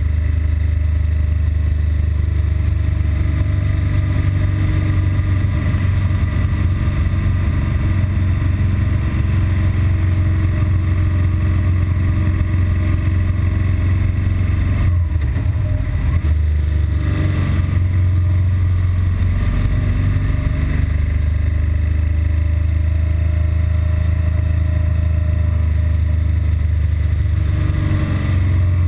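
BMW R1200GS Adventure's flat-twin boxer engine running steadily as the bike is ridden, running normally with no sign yet of its intermittent stalling fault. The engine note drops briefly about halfway through and then climbs again.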